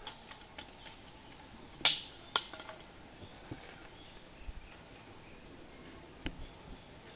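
A few short, sharp snaps or clicks, two loud ones close together about two seconds in and another near six seconds, over a faint steady high insect hum.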